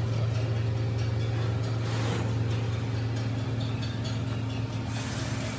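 Steady low hum of a running workshop machine, with brief hissing swells about two seconds in and near the end.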